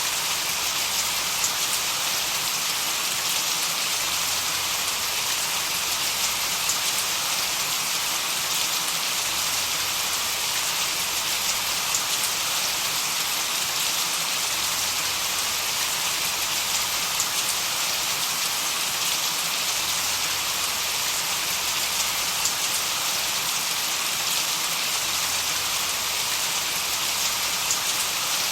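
Steady rain-like noise: an unbroken hiss, strongest in the upper treble, with faint scattered drop-like ticks.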